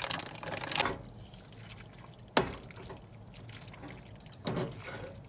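Wooden spoon stirring thick goulash (noodles in a meat and tomato sauce) in an enamel pot, a soft wet squishing, with one sharp knock about two seconds in.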